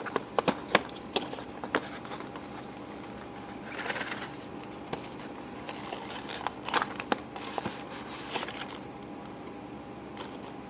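Hands unpacking a puzzle cube from its box and packaging: a run of sharp clicks and taps, a short rustle about four seconds in, then more clicks that die down over the last couple of seconds.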